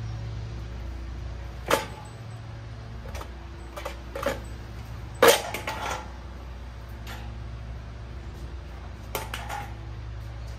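Clunks and knocks from a steel motorcycle dolly as a heavy motorcycle is rolled backward off its deck. The loudest bang comes about five seconds in, with another sharp knock near two seconds and one near nine seconds, over a steady low hum.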